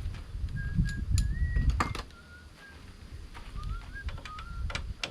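A bird singing short whistled notes, some sliding up or down in pitch. Under it there is a low rumble, loudest in the first two seconds, and a few sharp clicks and knocks.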